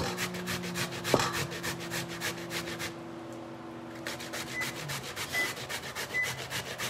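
Peeled cassava being grated by hand on a stainless steel box grater: quick, even rasping strokes that pause for about a second near the middle, then resume.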